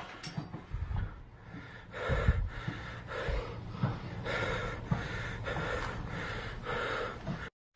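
Heavy, rhythmic breathing of a person, about one breath a second, starting about two seconds in, with low handling thumps beneath. It cuts out briefly near the end.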